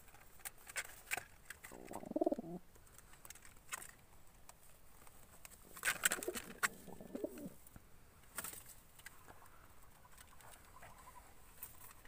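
Domestic pigeons cooing: a short coo about two seconds in and a longer one from about six seconds, with scattered light clicks between them.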